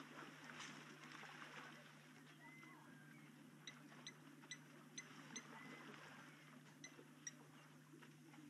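Faint waterhole ambience over a steady low electrical hum: elephants sloshing in shallow water, a few short bird whistles, and from about halfway a run of sharp, quick chirps or ticks.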